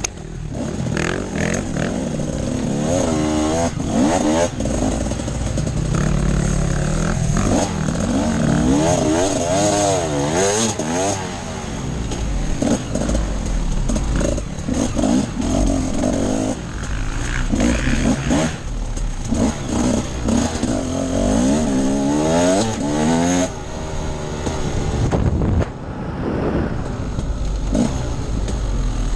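Off-road enduro motorcycle engine under hard riding, its pitch rising and falling again and again as the throttle is opened and closed.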